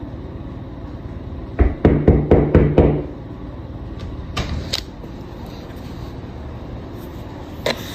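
A door being knocked on: about six quick, loud knocks in a row, followed a couple of seconds later by a few fainter clicks.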